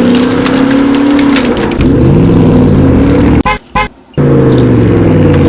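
Car engine sound effect revving, its pitch dipping and rising again; it cuts off sharply about three and a half seconds in and starts again about a second later.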